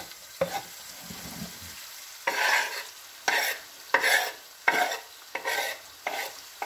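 Knife blade scraping chopped sweet basil off a wooden cutting board into a frying pan: a run of short scraping strokes, about one every two-thirds of a second, starting about two seconds in. A faint sizzle from the pan lies underneath.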